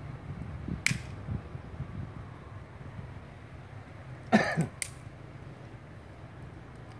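Pruning shears snipping branches on a conifer bonsai: a sharp snip about a second in and another just before the five-second mark. A short, louder, rough burst comes just before the second snip.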